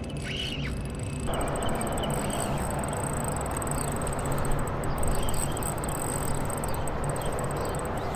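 Shimano Luvias 2500 spinning reel ticking fast and lightly as a hooked bream is wound in, over steady outdoor noise with a few short bird chirps. The noise grows fuller about a second in.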